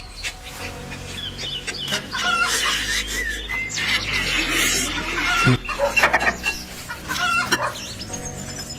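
Chicken clucking in short, repeated calls over background music, with some sharp clatter mixed in.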